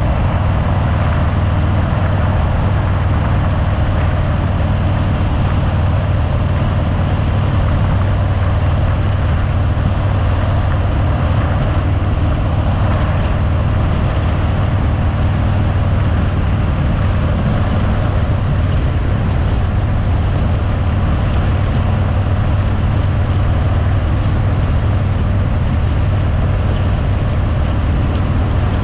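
2018 Harley-Davidson Fat Bob's V-twin engine running steadily under way, picked up by a handlebar-mounted camera, with a constant rush of wind noise over it.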